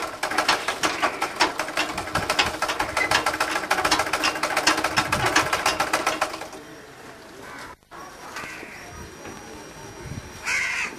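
Treadle sewing machine stitching: a fast, even clatter of the needle mechanism that stops about six seconds in.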